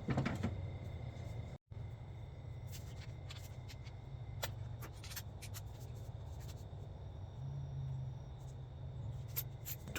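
Faint scattered clicks and rustles of hand tools and parts being handled, over a steady low hum, with a brief dead gap about one and a half seconds in.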